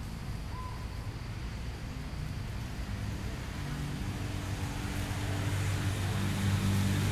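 A motor vehicle's engine running, growing steadily louder through the second half as it draws nearer.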